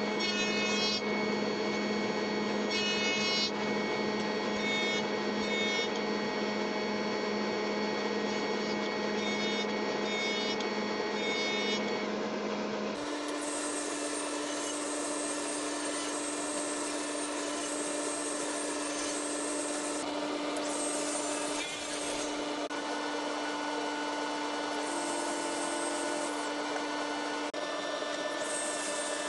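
A jointer running, its cutterhead shaving a hardwood board in repeated passes; a little under halfway through the sound switches abruptly to a SawStop 1.75 hp Professional Cabinet Saw running at a steady pitch and ripping a maple block.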